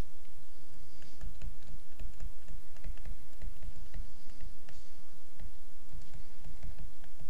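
Stylus tapping and scratching across a tablet screen during handwriting: an irregular run of small clicks over dull low thuds.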